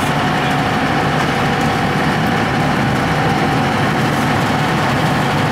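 Tourist boat's engine running steadily under way: an unbroken drone heard inside the enclosed passenger cabin.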